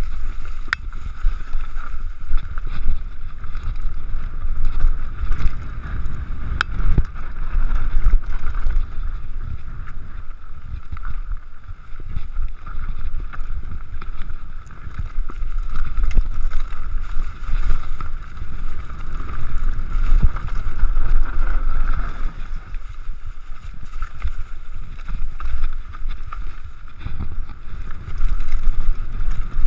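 Mountain bike riding fast down a rough dirt trail: wind buffeting the microphone with a low rumble, frequent knocks and rattles as the bike clatters over rocks and roots, and a steady high whir underneath.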